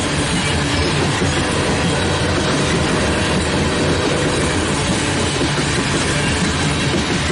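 Coal train cars rolling past, a steady loud rumble and clatter of steel wheels on the rails.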